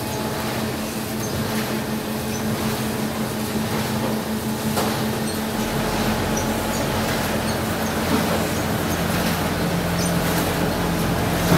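A 1995 Iberica DG 60 die-cutting machine running with a steady mechanical hum. A deeper hum joins about halfway through, and there is a single knock about eight seconds in.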